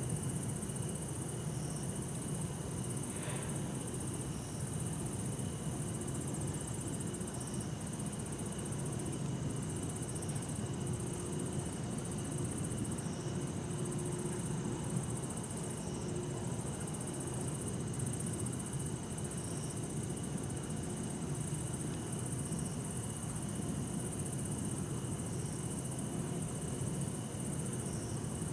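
Bell crickets (suzumushi) and other insects singing steadily at night, with a short call repeating every few seconds, over a low, constant hum of distant city traffic.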